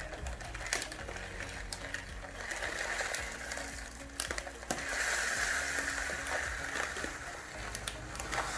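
Spoon stirring melted chocolate and butter in a bowl: a steady crackly scraping, with a few sharp clicks of the spoon against the bowl.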